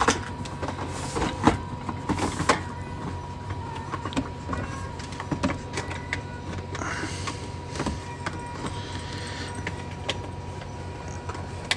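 Scattered clicks and knocks of hands rummaging for AA batteries, over a steady low hum and a faint steady tone.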